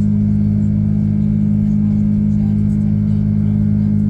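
Jet airliner engines running, heard from inside the passenger cabin: a loud, steady low drone with a constant hum.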